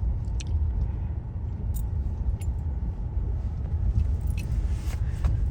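Low rumble of a car driving, heard from inside the cabin, with a few light rattling clicks now and then.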